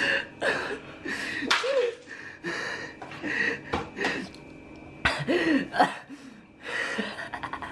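A man's short non-word vocal noises, gasps and grunts, in quick bursts, with a few sharp clicks or knocks.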